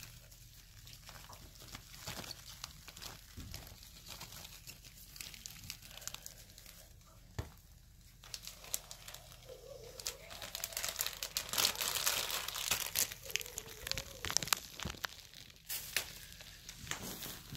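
Plastic crinkling and rustling with many small clicks as a plastic feeder cup of crickets is handled over a plastic terrarium tub. It grows louder and busier about two-thirds of the way through.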